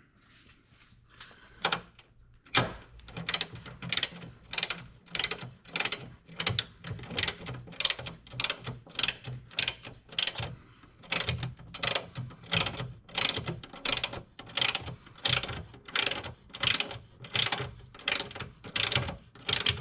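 Socket ratchet wrench clicking in steady back-and-forth strokes, about two to three a second, running down the nuts that hold a strut tower brace to the strut towers. The strokes begin a couple of seconds in and pause briefly about halfway.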